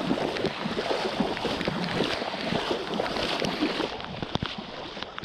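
Heavy rain falling on a flooded street, with feet splashing and sloshing through shallow floodwater and many irregular sharp taps and splashes throughout.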